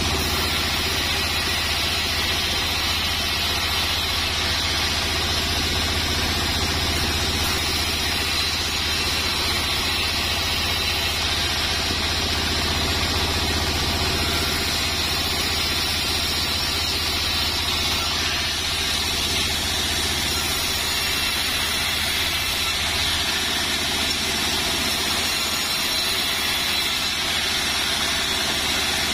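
Sawmill bandsaw running steadily, its blade ripping sengon planks into 3x5 strips, over a constant low hum from the machine.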